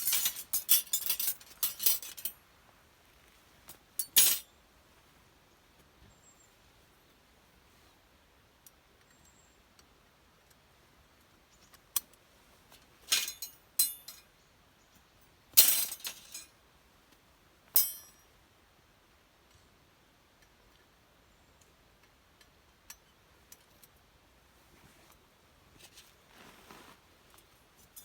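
Small hard objects clinking and jangling as they are handled, in short bursts: a rapid run in the first two seconds, another knock about four seconds in, and more clusters about twelve to eighteen seconds in, with quiet stretches between.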